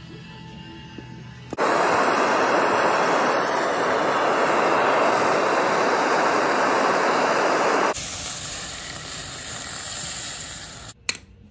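A loud steady hiss that starts abruptly about a second and a half in and cuts off about six seconds later, leaving a softer hiss, with a sharp click near the end.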